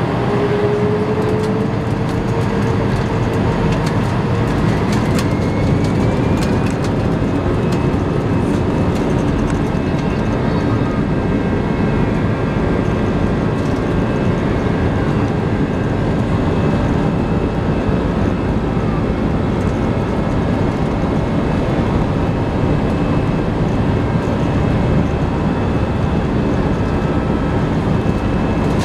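Airbus A320 jet engines heard from inside the cabin during the takeoff roll. Their whine rises in pitch over the first several seconds as they spool up, then settles into a steady loud rush of engine noise and wheel rumble as the airliner accelerates along the runway.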